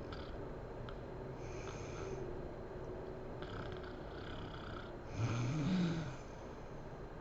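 A sleeping woman snoring, with noisy breaths in and out. About five seconds in comes a louder, deeper snore, the loudest sound here.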